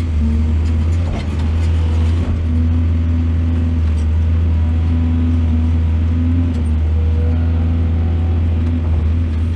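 Heavy diesel engine of a mining excavator running steadily with a deep low hum, its pitch wavering slightly, and a few faint clicks about one and two seconds in.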